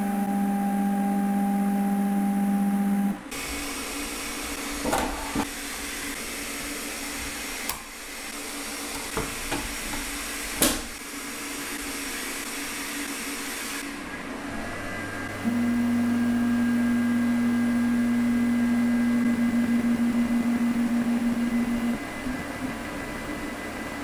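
Creality K1C 3D printer running a print: its stepper motors give a steady hum-like whine over the fans. It drops away for a stretch in the middle, leaving quieter noise with a few light clicks, and then comes back steady for several seconds.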